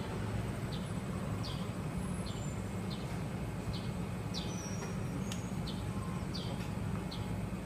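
Rice being scrubbed by hand in a plastic bucket: faint short squeaks about twice a second over a steady low hum.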